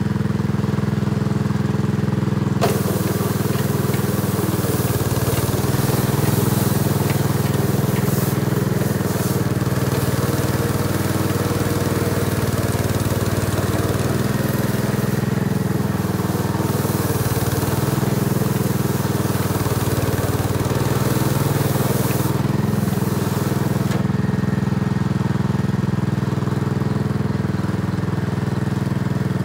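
Small engine of a walk-behind two-wheel tractor running steadily. About three seconds in, its rotary drum engages and tears into dry soil, adding a gritty rushing noise of dirt and stones being thrown, with scattered ticks. The noise cuts out a few seconds before the end, leaving only the engine.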